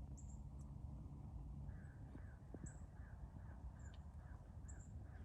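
A bird calling a quick run of short, slightly falling notes, about two and a half a second, starting about two seconds in, with a few faint high chirps and a steady low rumble behind.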